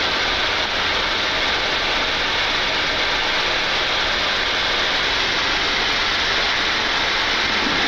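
Steady hiss and rumble inside the flight deck of a Boeing 747-8 freighter rolling at taxi speed just after landing, even in level throughout.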